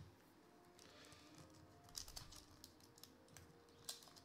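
Faint crinkling and crisp clicks of a foil trading-card pack being handled, with the sharpest crackles about two seconds in and just before the end.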